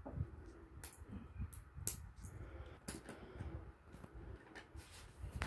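Small plastic building bricks and swing-chain pieces clicking and rattling as they are handled and pressed together, with a few sharp clicks about a second apart over a faint low rumble.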